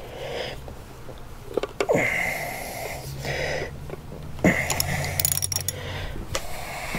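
Socket ratchet and steel bracket on a motorcycle fork as a hex-head bolt is tightened: scattered metallic clicks and clinks, with a quick run of ratchet clicks about five seconds in.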